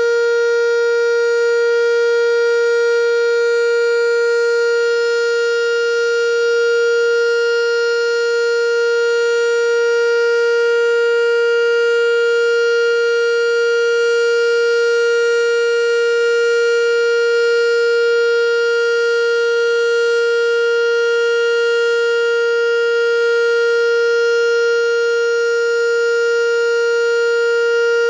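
American Signal Corporation T-112 outdoor warning siren sounding its steady alert signal: one loud tone held at a constant pitch, with no rise or fall.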